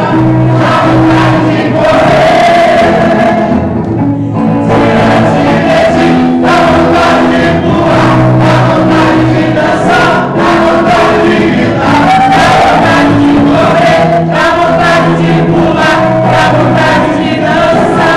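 Church congregation singing a gospel worship song together over loud accompanying music with a steady beat.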